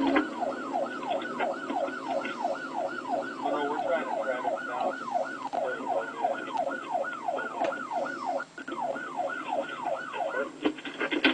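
Police car siren in rapid yelp mode, fast repeating falling sweeps at about three a second, with a few sharp knocks near the end.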